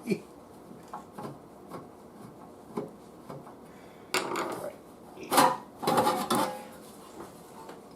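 Hands handling objects on a workbench: scattered light clicks and knocks, then a louder stretch of clattering and rubbing about four seconds in that lasts a couple of seconds.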